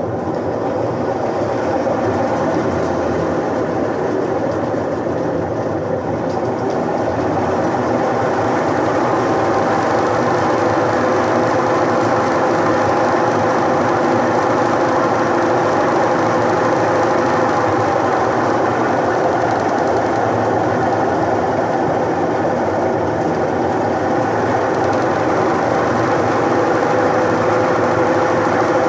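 Electrolux washing machine's motor and drum spinning up into the spin cycle, rising over the first couple of seconds and then running loud and steady. It is spinning again now that the melted motor-capacitor wire has been fixed, but it makes a loud mechanical racket ("barulhão") that the repairer says still needs fixing.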